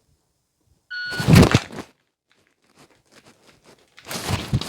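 Shot timer's short start beep about a second in, followed at once by the rustle and knock of a Glock 45 pistol drawn from its holster. A string of faint clicks from dry-fire trigger presses follows, then louder gun-handling noise near the end.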